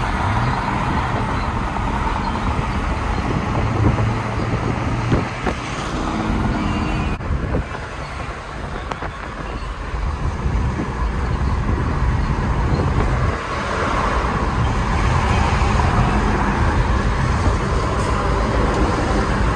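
Mercedes-Benz C230 Kompressor's supercharged four-cylinder engine and tyre and road noise while the car is driven under power, easing off for a few seconds near the middle and building again afterwards.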